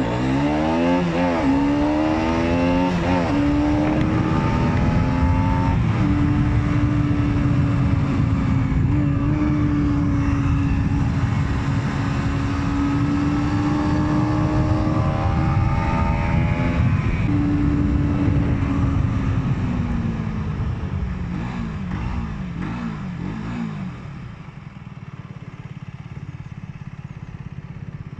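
Aprilia Tuono 125's single-cylinder 125 cc four-stroke engine accelerating hard through the gears, its pitch climbing and dropping back with each quick upshift over the first few seconds. It then holds high revs steadily for about ten seconds. It then falls away, blips through several downshifts, and settles to a quieter low rev near the end.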